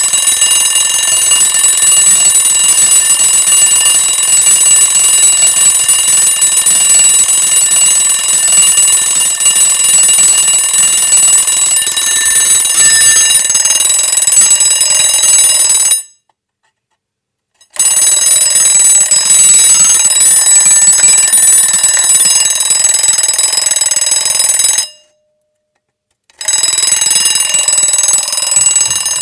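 Old Italian-made alarm clock ringing loudly and continuously, a steady high ring that cuts off twice for about a second and a half, once about halfway through and again near the end, then starts again.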